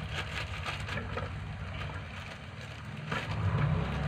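Clear plastic bag filled with bait dough crinkling as it is twisted shut and tied. Underneath there is a low steady rumble that grows louder about three seconds in.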